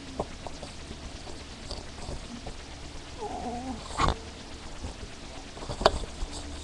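Desk items handled and set down on a wooden desk: a few light clicks, a loud knock about four seconds in and a sharp click near the end, over a steady low hum. A brief wavering pitched sound comes just before the knock.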